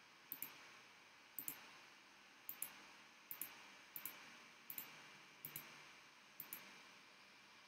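Faint clicking of a computer mouse: eight quick press-and-release pairs, about one pair a second, over a low steady hiss.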